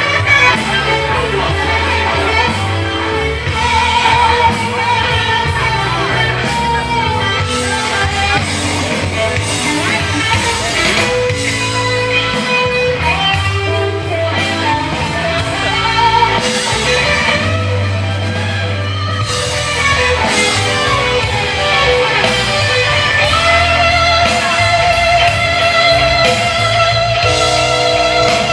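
A live rock and blues band playing, with electric guitar and singing.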